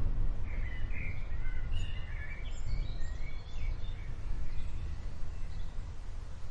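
Birds chirping, busiest in the first few seconds, over a steady low rumble of distant thunder from an approaching thunderstorm.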